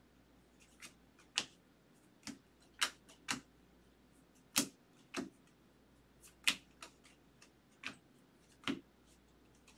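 Baseball trading cards being flipped one at a time through a hand-held stack, each card flicked off the front with a short, sharp snap; about a dozen snaps at an uneven pace.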